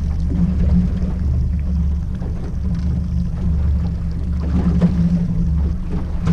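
Outboard motor running steadily at slow trolling speed, a constant low hum, with water splashing against the aluminium hull, a little stronger about two-thirds of the way through.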